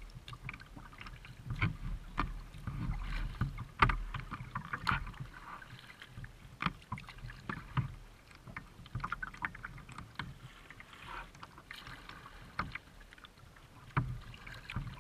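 Kayak paddling: the paddle blades splashing and dripping in the water, with irregular sharp knocks and clicks against the kayak.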